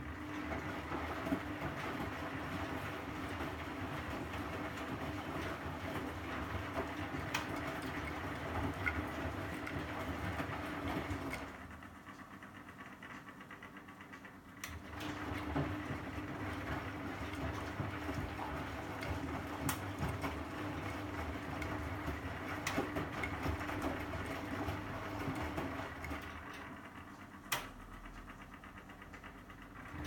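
Bendix 7128 washing machine turning its drum to tumble the load, the motor humming steadily with light clicks and knocks. The drum turns for about eleven seconds, stops for about three, starts again for about twelve seconds and stops once more near the end.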